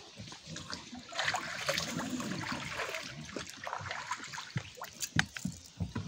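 Water splashing and trickling, with a few short knocks or splashes toward the end.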